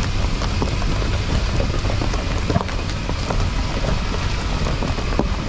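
A vehicle driving over rough dirt ground: a steady low rumble with many scattered knocks and rattles.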